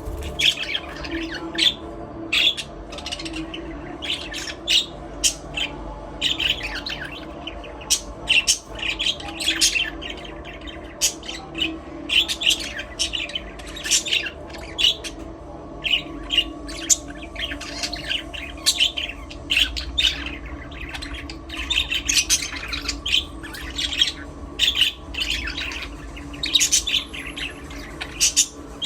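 A flock of budgerigars chirping and chattering without a break, short rapid calls overlapping one another, over a steady low hum.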